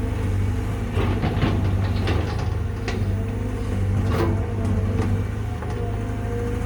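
Excavator diesel engine running steadily, with a run of short clicks and knocks from about one to three seconds in and a sharper knock a little after four seconds.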